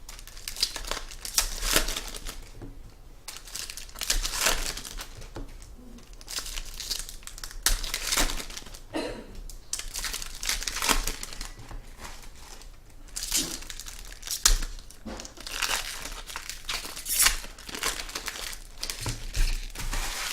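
Trading-card pack wrappers crinkling and tearing as packs are ripped open, in a string of short, irregular crinkly bursts.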